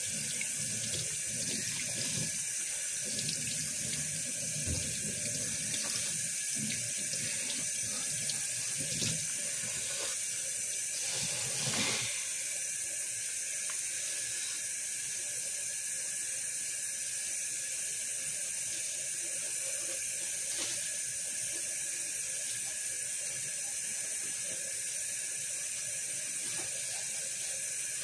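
Tap water running steadily into a stainless steel sink. Over it, hands squeeze and swish soapy sponges in thick foam, with wet squelching in the first half that is loudest about twelve seconds in, then mostly the running tap alone.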